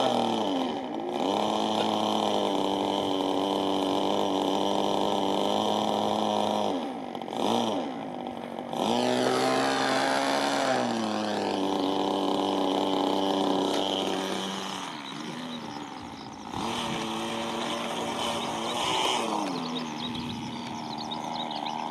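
Model-aircraft glow engine running on the ground, its speed dropping and picking up again several times while its fuel mixture is set with the needle valve.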